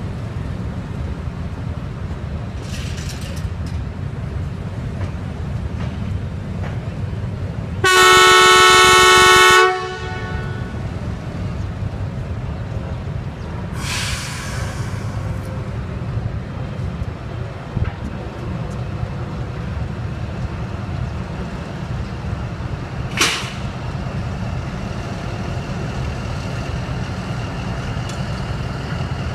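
ZCU-20 diesel-electric locomotive pulling away slowly with a steady low engine rumble. About eight seconds in it gives one loud horn blast lasting about two seconds. A brief hiss follows some six seconds later, and there is a sharp click near twenty-three seconds.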